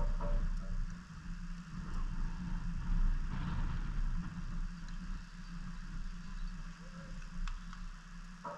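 Steady low rumble of outdoor background noise, with a faint click near the end.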